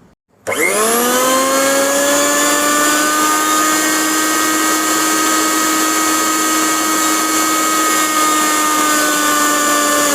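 Philips 750-watt mixer grinder motor running with no jar fitted, switched on about half a second in: its whine rises quickly as it spins up, then holds at a steady pitch.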